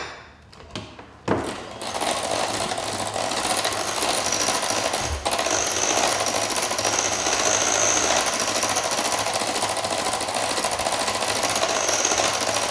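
A few knocks, then an electric hand mixer switched on about two seconds in, running steadily as its beaters whip a bowl of mashed potatoes with milk, egg, butter and cream cheese.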